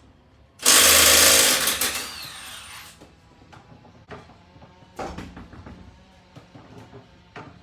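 Impact wrench running in one loud burst of about a second and a half, then winding down with a falling whine. A few light clanks of metal parts follow.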